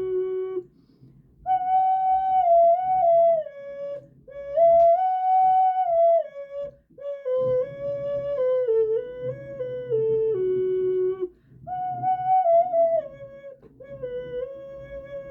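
Bird-shaped pendant ocarina playing a slow melody in a minor pentatonic scale: held notes stepping up and down, in four phrases with short breaks between them.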